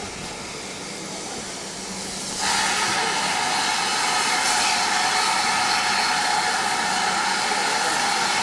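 Steam locomotive letting off steam: a loud steady hiss that starts suddenly about two and a half seconds in and holds without a beat, over a murmur of crowd.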